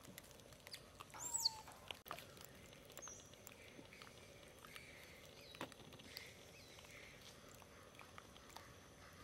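Faint outdoor ambience with a few short, high squeaky animal calls falling in pitch, the loudest about a second and a half in, and scattered small clicks.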